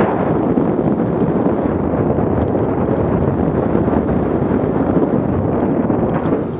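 Wind buffeting an action camera's microphone while riding in a bicycle race: a loud, steady rushing roar with no distinct strikes or tones.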